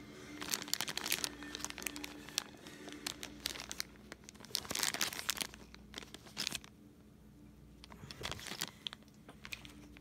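A small clear plastic bag of game pieces crinkling and rustling as it is handled, in irregular spurts that are busiest a few seconds in and thin out near the end.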